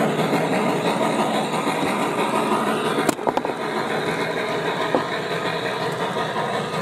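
G-scale model passenger train rolling past close by, its wheels making a steady rumble on the track, with a few sharp clicks a little after three seconds and one near five seconds.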